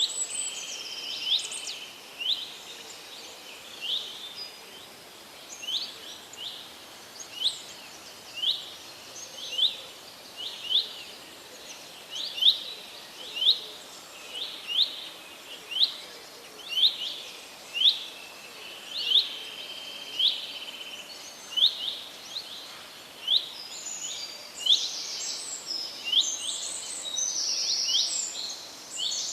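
A bird calling a short, rising chirp over and over, about once a second, over a steady outdoor hiss; other birds join with busier calls near the end.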